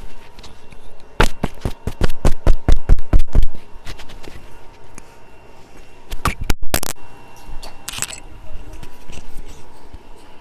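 A fast run of scrapes and knocks from cookware and utensils being handled, then a couple of louder clatters about six and a half seconds in.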